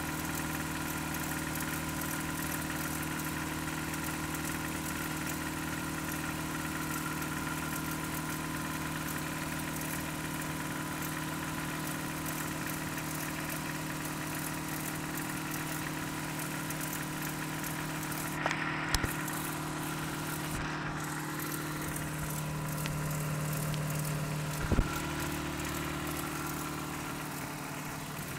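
Toyota 22RE 2.4-litre four-cylinder engine idling steadily, with a couple of sharp clicks about two-thirds through and another near the end. The owner suspects the engine has a timing-chain noise and/or rod knock.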